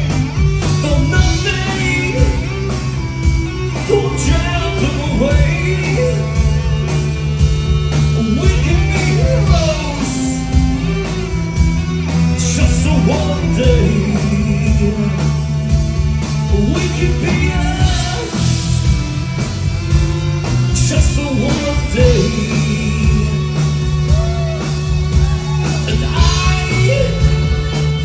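Rock song with a lead vocal over a full band: a steady bass and drums, with guitar and keyboards.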